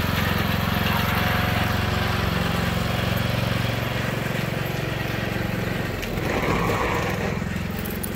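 Troy-Bilt riding lawn mower engine running steadily as the mower drives off, its drone growing fainter after a few seconds.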